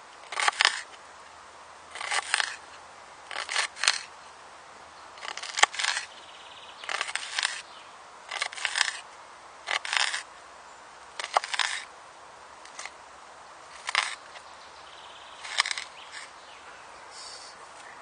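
Thick-bladed Richard Kapeller survival knife chopping an onion on a wooden cutting board: short runs of a few quick, sharp knocks of the blade through onion onto the board, repeated about every second and a half.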